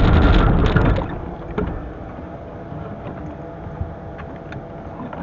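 Carbureted three-cylinder engine of a Suzuki Mehran running, then dying about a second in: a stall on a hard-starting cold engine. A few faint clicks follow in the lull, and the engine starts running again at the very end.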